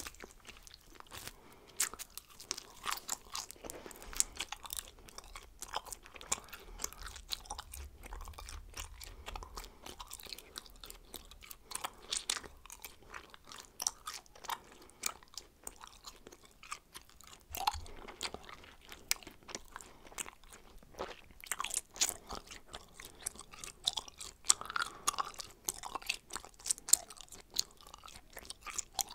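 A woman chewing bubblegum close up: a steady run of irregular sharp mouth clicks, several a second.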